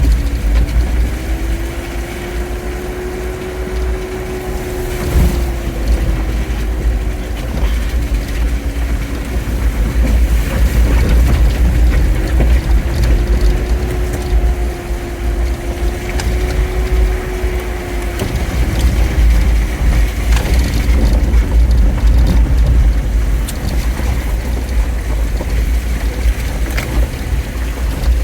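Jeep Wrangler driving at slow speed, with a heavy low rumble of road and wind noise under an engine note that slowly rises and falls twice as the throttle changes.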